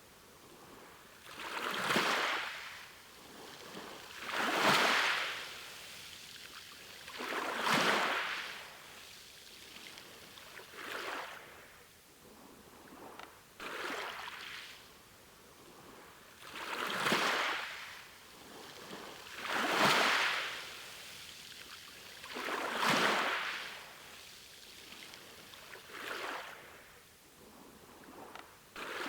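Sea waves breaking and washing in, about one surge of surf every three seconds, each swelling up and fading away.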